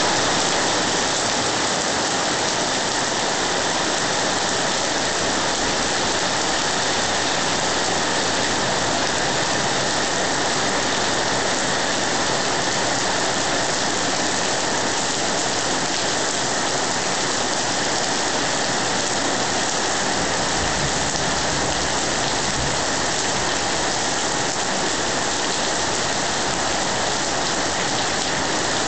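Heavy tropical rainy-season downpour: a steady, even hiss of rain falling on roofs and foliage, unchanging throughout.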